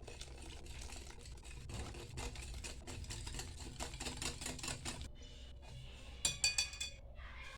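Kitchen utensil working against a mixing bowl: quick irregular clicking and scraping, then a few ringing clinks about six seconds in.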